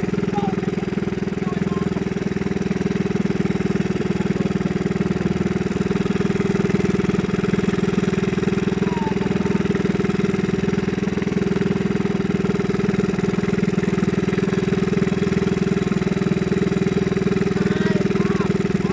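Small fishing boat's engine running steadily at constant speed, an even hum that does not change.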